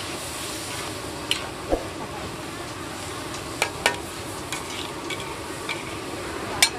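Stir-frying in a large metal wok: a steady sizzle as greens and sliced meat are tossed. A metal spatula clinks and scrapes against the wok several times, the sharpest strike coming near the end.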